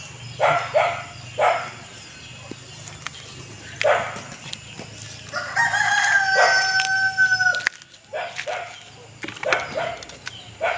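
A rooster crowing once, a long held call about halfway through, with a dog barking in short pairs before and after it.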